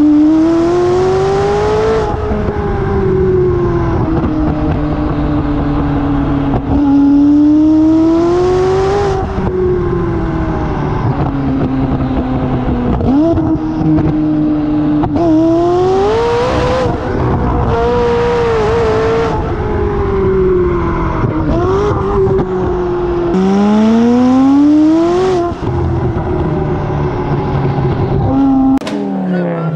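High-performance car engine on an open exhaust, accelerating hard and easing off about five times, its pitch climbing quickly and then sinking slowly each time. A sharp crack comes near the end, as flames shoot from the exhaust.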